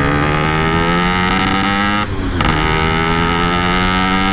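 Yamaha RX-King two-stroke single-cylinder motorcycle engine pulling at easy throttle, its note climbing steadily, dropping with a gear change about two seconds in and climbing again.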